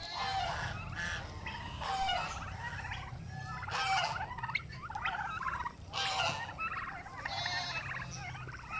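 A flock of young turkeys calling over and over, several birds at once, in short bursts about every second. A steady low hum runs underneath.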